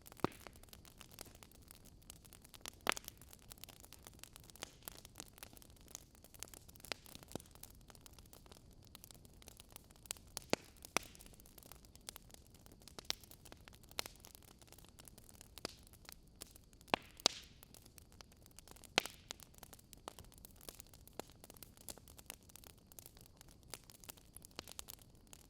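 Wood fire crackling: irregular sharp pops and snaps from burning logs over a faint steady hiss, with a few louder pops scattered through.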